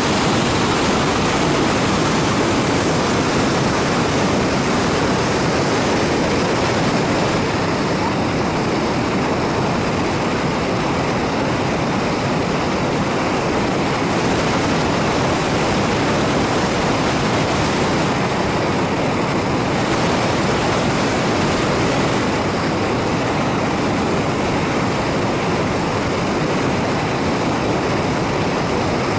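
Fast, high water of the Terek river rushing over rocks and a weir: a steady, loud rush of turbulent water.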